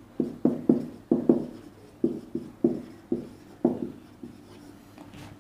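Marker pen writing on a whiteboard: a quick run of about a dozen short strokes, each sharp at the start and fading fast, stopping a little after four seconds in.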